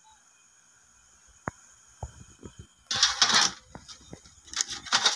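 Handling noise of a preamp circuit board and its wiring being moved about inside a metal amplifier chassis: a sharp click and a knock about a second and a half in, then two short bursts of rustling clatter with scattered clicks.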